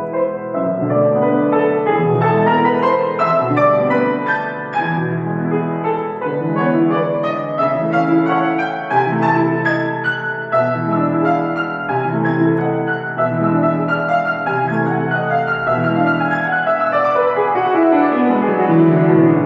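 Niendorf grand piano being played: repeated chords in the bass under a melody, with a run falling down the keyboard near the end that lands on a loud chord.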